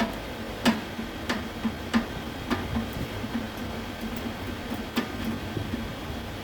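A series of sharp clicks or taps, several about half a second apart early on, then sparser, over a faint steady background hum.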